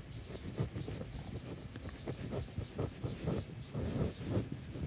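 Marker pen writing on a whiteboard: a run of short, faint scratching strokes, several a second, as letters are written out.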